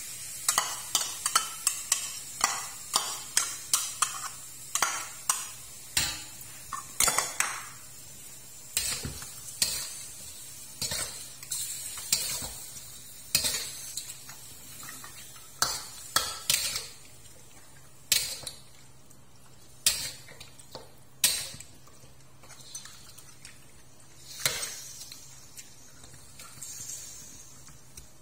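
Metal spatula knocking and scraping against a stainless steel wok while stir-frying pork pieces. The strokes come rapidly at first and thin out into occasional knocks in the second half.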